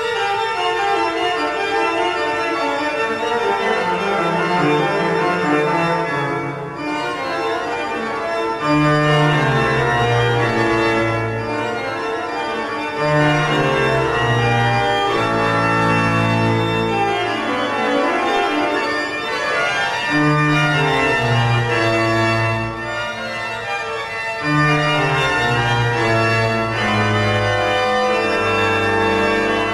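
Two-manual pipe organ with electric action playing slow, held chords, with a low bass line coming in strongly about nine seconds in and moving down in steps.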